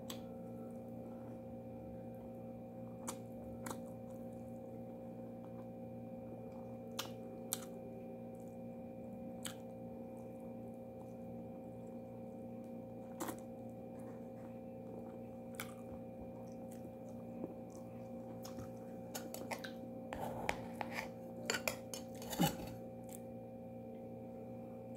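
Quiet sounds of someone eating with her hands: scattered soft clicks and mouth smacks while she picks at fish and chews, coming thicker for a couple of seconds near the end, over a steady low hum.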